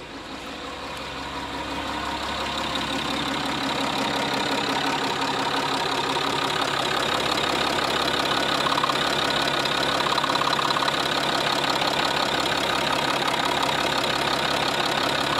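Citroën C6's 2.7 V6 HDi diesel engine idling with a fast, subtle knocking ticking from the injection system, typical of a sticking injector. The sound grows louder over the first few seconds, then holds steady.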